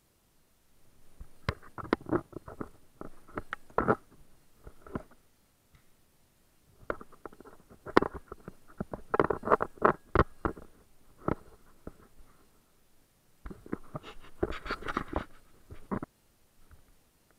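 Footsteps crunching and scraping on a rubble-strewn concrete floor, with the rustle and knock of carried gear. They come in three irregular bursts of movement with short pauses between.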